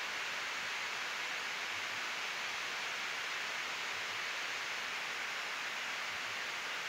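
Steady rushing hiss of airflow and air-conditioning noise on a Boeing 777-200F flight deck in flight, even and unchanging, strongest in the upper-middle range.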